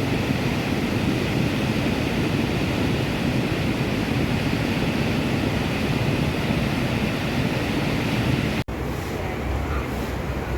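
Rough sea surf and wind buffeting the microphone, a steady roar of noise. It cuts off abruptly about 8.7 s in and resumes with a heavier low rumble.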